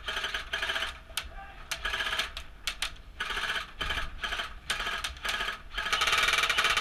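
Airsoft guns firing short full-auto bursts, a rapid mechanical rattle; about eight bursts, the longest near the end.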